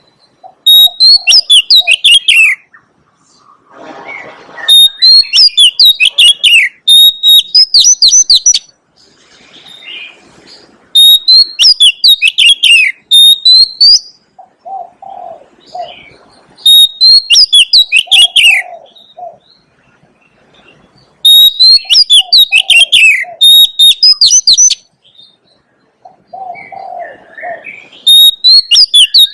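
Oriental magpie-robin singing loud phrases of rapid, high whistles and down-sweeping notes, repeated about every five to six seconds in near-identical form. Softer, low notes sound in the gaps between phrases.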